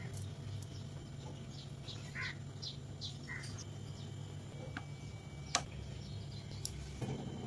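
A few short bird calls over a steady low hum, with a single sharp click about five and a half seconds in.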